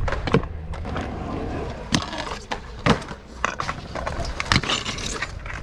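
Stunt scooter wheels rolling over skatepark concrete in a steady rumble, with a few sharp clacks of the scooter's deck and wheels hitting the ground.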